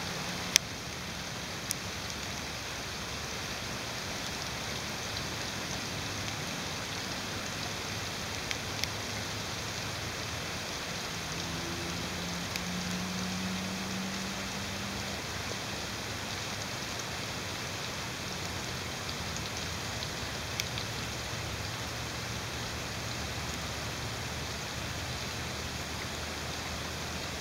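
Steady rain falling, with a few sharp ticks scattered through it, the loudest about half a second in.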